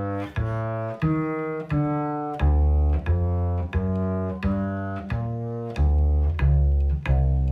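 Double bass played pizzicato with a single finger (the index), an even line of plucked notes, about three every two seconds, each with a sharp attack. Playing every note with the same finger gives them all the same attack.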